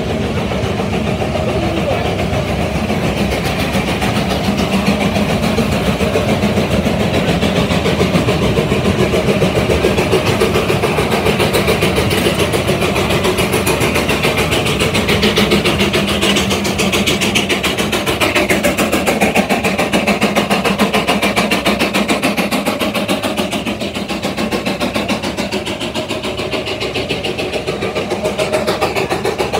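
Steam traction engine working under load against a belt-driven dynamometer, its exhaust beating in a fast, even rhythm without a break.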